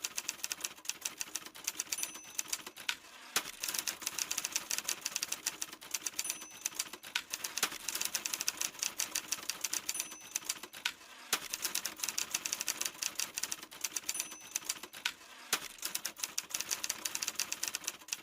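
Rapid, continuous clicking, like typing, with a short high beep about every four seconds.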